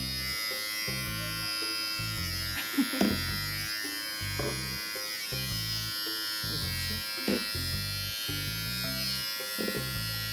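Electric pet hair clipper running with a steady whine as it trims a Maltese's fur.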